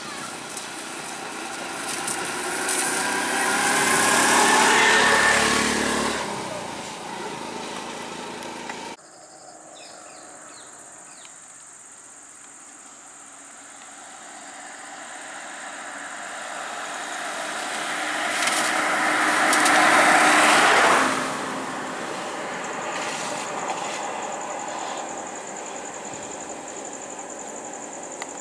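An auto-rickshaw's small engine passing close by, its note dropping in pitch as it goes past. After an abrupt cut, a car approaches on the wet road, growing steadily louder until it passes close about two-thirds of the way through, then fades.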